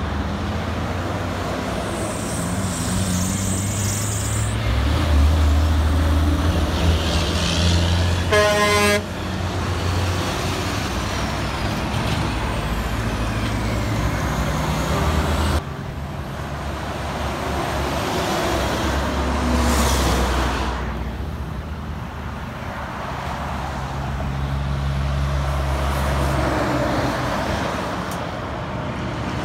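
Heavy diesel trucks running past one after another, their engines steady and low. A single short horn toot sounds about eight seconds in.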